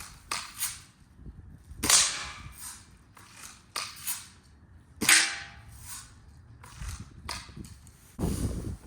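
Daisy Red Ryder spring-piston BB gun firing twice, about three seconds apart, each shot a sharp crack with a short ring after it. A pair of lighter clicks comes before each shot, in keeping with the lever being worked to cock it, and a duller thump follows near the end.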